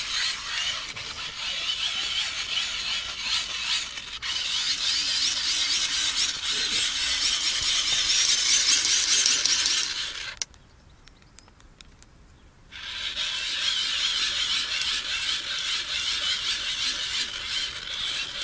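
Hand-cranked dynamo wind-up light being wound: a geared whirring whine whose pitch wavers with the cranking. It stops for about two seconds a little past the middle, then starts again.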